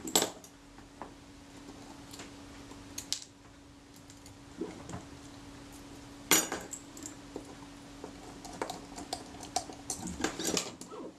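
Scattered small metallic clicks and clinks of tweezers and a metal strap-lug bracket being worked into place on a Kodak Retina IIIC camera body. The loudest click comes about six seconds in and a quick run of clicks near the end, over a faint steady hum.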